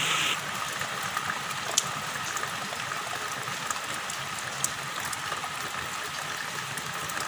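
Rain falling on shallow water running over pebbles: an even watery hiss with scattered sharp drop ticks. A louder rain hiss cuts off just after the start.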